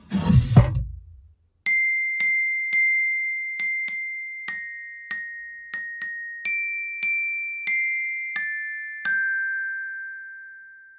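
A short rush of noise, then a slow, high melody of about fourteen glockenspiel notes. Each note rings and fades, and the last one is left to ring out.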